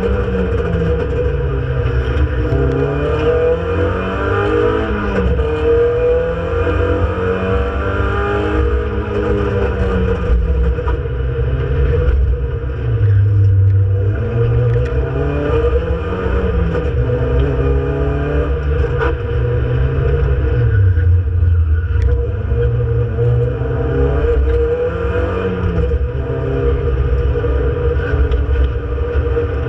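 Renault Clio Sport 182's 2.0-litre four-cylinder engine, heard from inside the cabin under race driving, revving up and falling back again and again. A constant whine runs underneath.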